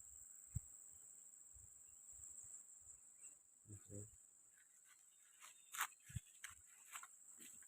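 Near silence outdoors: a faint, steady high-pitched insect drone, with scattered soft clicks and knocks.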